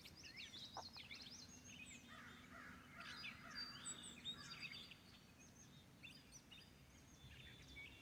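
Faint chorus of several songbirds chirping and warbling, many short overlapping calls, over a faint steady low hum.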